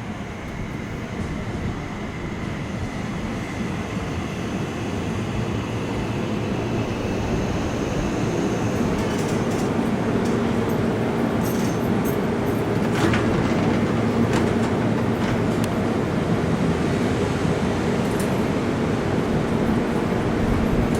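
Seibu Shinjuku Line electric train approaching along the track, growing steadily louder, with a thin high whine early on and a run of sharp clicks from about halfway through.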